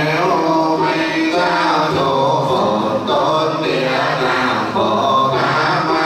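Background music of chanting, likely Buddhist, with a voice intoning slow, held notes over a sustained accompaniment.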